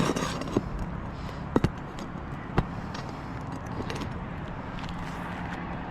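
Several sharp clicks and taps, with a quick pair about a second and a half in, as a hand tool works a roofing nail out from under an asphalt shingle, over a steady low background rumble.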